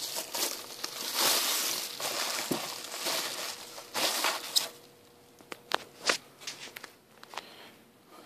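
Plastic bubble-wrap packaging crinkling and rustling as a 360 mm water-cooling radiator is unwrapped and pulled from its box, followed in the second half by a few scattered light clicks and knocks as it is handled and set down.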